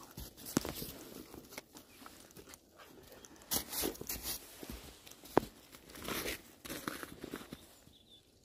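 Scattered crunching steps in packed snow, with a couple of sharp clicks, one just after the start and one past the middle.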